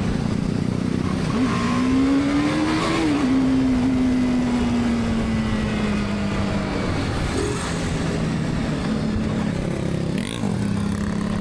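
BMW G310R motorcycle's single-cylinder engine under way, revving up for about two seconds, dropping sharply as it shifts up a gear, then easing off and settling to a steady run, with a short blip near the end.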